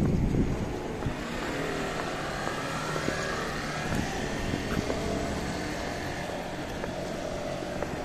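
Street traffic noise: a steady hum of road vehicles, with wind rumbling on the microphone in the first moment.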